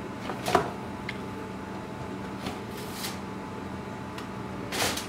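A few short scraping, rustling handling sounds as a spoon sets lumps of butter onto a roast in a foil-lined tray, over a steady low hum.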